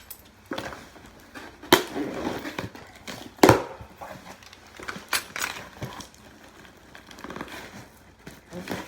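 Plastic wrap on a phone box being cut and picked open with a key: scraping and crinkling handling noise with a few sharp clicks, the loudest around two and three and a half seconds in.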